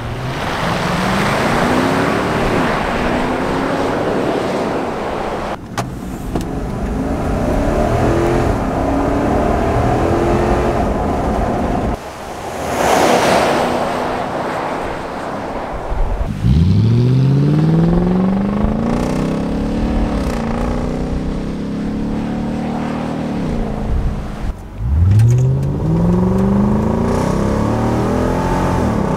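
Nissan Y62 Patrol's 5.6-litre V8 accelerating hard through the gears, its exhaust note climbing in pitch and dropping back at each upshift, over several runs. The first runs are through the standard exhaust with its large factory muffler. The later ones have the muffler cut out, leaving just the resonator.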